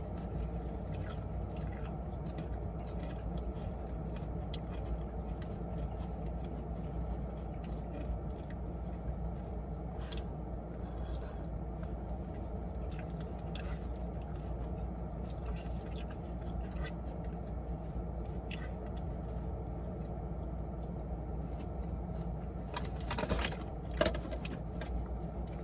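Steady low hum of a car interior with the engine running, under scattered small clicks and rustles of people eating from plastic cups and food containers. A few louder rustles come near the end.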